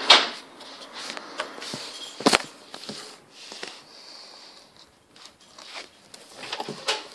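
Close handling noise: small Lego plastic pieces rustling and clicking in the hand, with two sharp clicks, one at the very start and one a little over two seconds in, among fainter scattered clicks.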